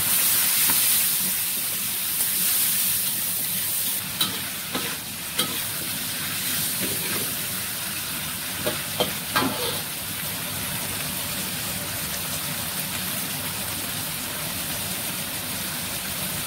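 Onion and bell pepper sizzling in a hot wok while a spatula stirs and scrapes them, with occasional sharp clicks of the spatula on the pan. The sizzle is strongest in the first four seconds, with a little water just added to the pan.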